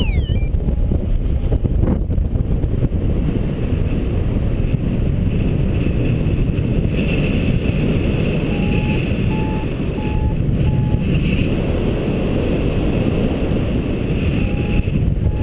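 Steady rush of flight wind on the microphone of a paraglider in flight, with a variometer beeping in short, evenly spaced tones about halfway through and again near the end, the sign that the glider is climbing in lift.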